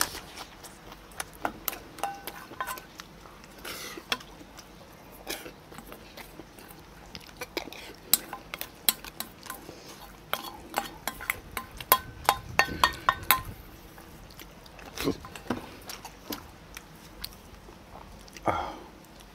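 Someone eating at a table: chopsticks and a spoon clicking and clinking against stainless steel bowls and dishes, with chewing in between. The clinks bunch up into a quick run of ringing taps a little past the middle.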